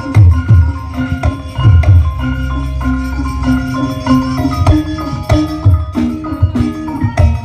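Music played loud through a large sound system with thirty subwoofers during a sound check: heavy, continuous bass under a melody of short struck notes with a steady beat.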